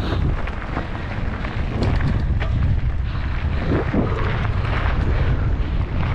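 Wind buffeting the ride camera's microphone as a mountain bike moves fast along the trail, a heavy low rumble that starts suddenly, with scattered clicks and rattles over it.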